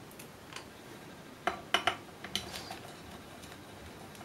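A screwdriver working the screws of an instrument's metal back cover: a few sharp metallic clicks and clinks, the loudest a quick cluster of three around the middle.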